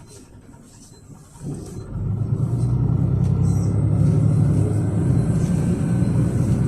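Low rumble of a Yutong ZK6116HG city bus, with its Yuchai six-cylinder natural-gas engine, heard from inside the cabin. It is fairly quiet for the first second and a half, then the rumble comes up and holds steady and loud.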